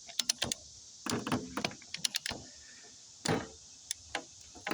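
Ratcheting tensioner for steel banding strap being worked by hand to tighten the strap around a bundle: irregular clicks and short scrapes in several strokes.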